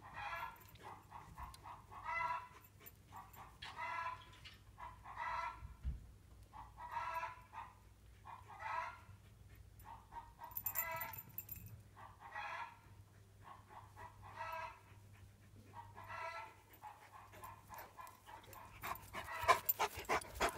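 A dog barking over and over, one bark about every one and a half to two seconds. Near the end, a dog right at the microphone, breathing and brushing against it.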